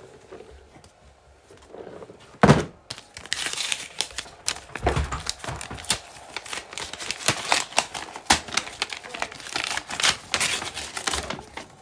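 Tissue paper crinkling and rustling as it is pulled out of a paper gift bag and handled, in a dense run of crackles from about three seconds in until near the end. Just before it, a single sharp thump.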